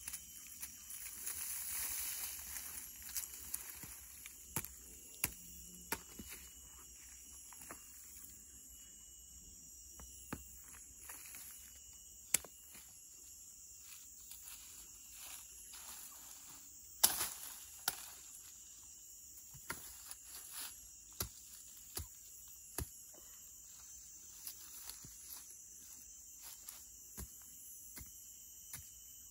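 Forest insects buzzing steadily in the background, with scattered sharp snaps, knocks and rustles of someone moving and working among dry sticks and leaf litter. The loudest knock comes a little past halfway.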